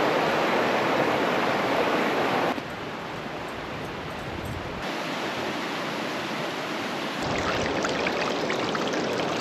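A small creek's water running steadily. Its level drops about two and a half seconds in and comes back up about seven seconds in, with a few faint ticks near the end.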